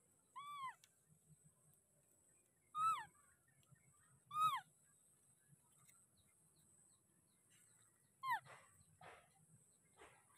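Baby macaque giving four short, high calls spread across a few seconds, each rising then falling in pitch, followed by a few short scratchy noises near the end.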